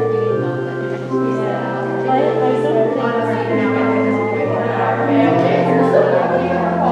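Music with singing: slow, sustained held chords that change every second or so.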